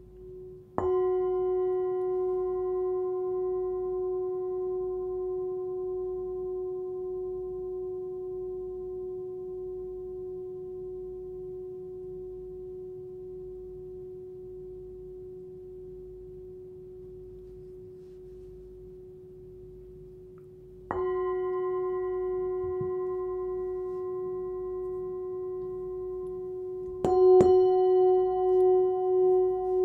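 Hand-forged Tibetan singing bowl, 13.5 cm, tuned to about 367 Hz (F#), struck and ringing with a long, slow fade. It is struck again about two-thirds of the way through, then twice in quick succession near the end, the loudest strikes, after which the tone pulses in slow waves.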